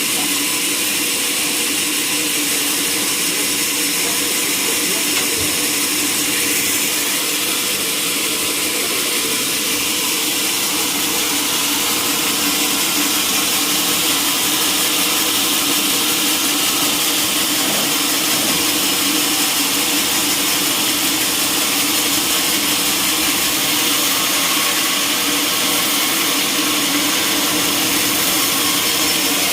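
Sawmill machinery running steadily, a loud, even machine noise with no break.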